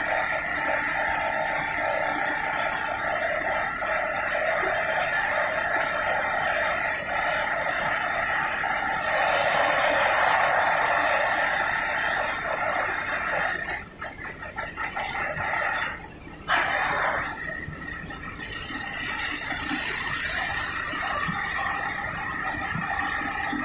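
Steady, wavering mechanical whine of heavy machinery, which drops out briefly about two-thirds of the way through and then resumes.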